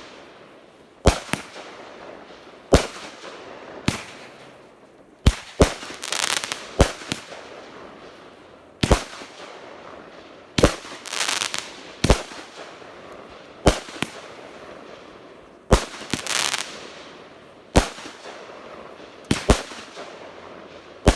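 Wild Stallion 200-gram consumer firework cake firing its shots: about sixteen sharp bangs, one every second or two, several followed by a brief trailing rush of noise.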